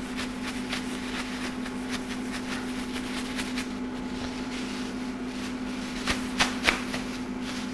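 A plastic bag crinkling and rustling as chicken strips are shaken in flour inside it: a stream of small crackles, with a few sharper, louder crackles about six seconds in. A steady low hum runs underneath.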